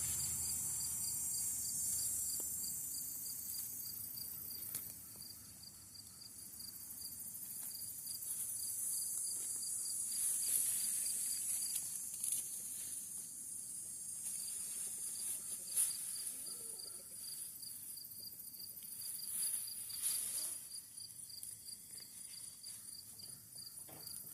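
Insects chirping in a steady high chorus, with a fast, even pulsing trill, and a few brief rustles.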